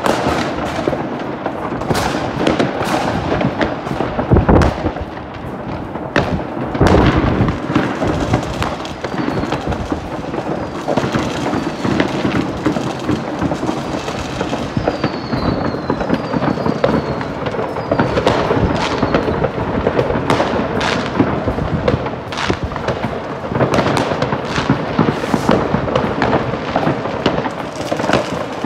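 Many fireworks going off across a town: a dense, continuous crackle of firecrackers and rocket bursts, with two heavy booms about four and seven seconds in. A few short falling whistles are heard around the middle.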